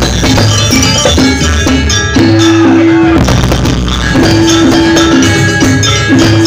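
Loud gamelan-style music for a Janger dance, with tuned metal percussion and drums playing.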